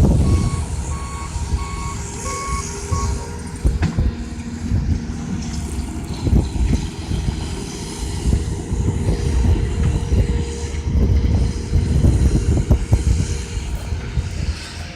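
Vehicle backup alarm beeping about twice a second, stopping about three seconds in, over the steady low rumble of heavy vehicle engines, with a few knocks.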